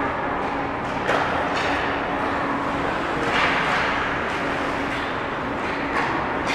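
Ice hockey rink game ambience: a steady wash of noise from play on the ice, with a sharp knock about a second in and another near the end, typical of puck or stick hits.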